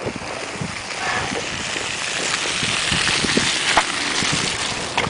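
A passing vehicle's tyres hissing through slush on a snow-covered street, swelling and then fading over a few seconds.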